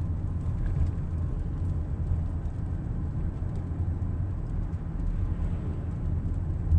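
Car driving along a street, heard from inside the cabin: a steady low rumble of engine and tyres.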